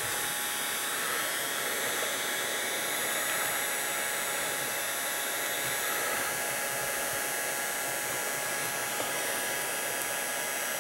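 Electric heat gun running steadily, a constant rush of blown air with a faint motor hum, heating the end of a rubber fuel hose.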